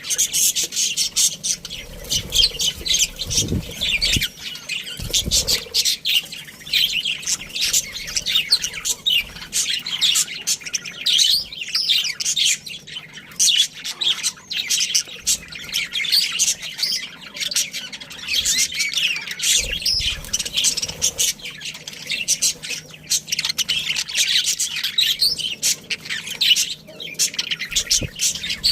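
A colony of budgerigars chattering: dense, continuous high chirps, warbles and squawks from many birds at once.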